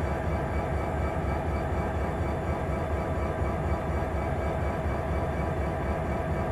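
Norfolk Southern diesel-electric locomotive standing still with its diesel engine running, a steady low drone with a steady hum above it.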